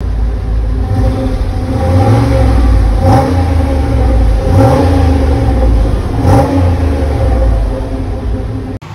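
2008 Chevrolet Impala SS's 5.3-litre LS4 V8 idling through its exhaust, with three short throttle blips about three, four and a half and six seconds in. The sound cuts off just before the end.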